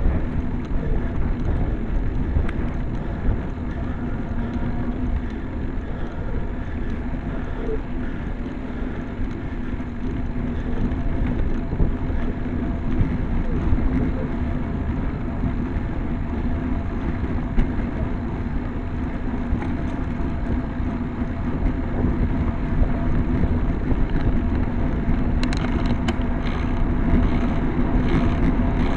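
Wind rumbling on the microphone of a camera mounted on a moving road bike, with steady tyre noise on tarmac and a hum underneath. A run of light clicks comes near the end.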